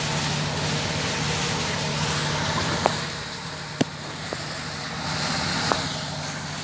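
Steady low engine hum, with a few short sharp clicks in the middle.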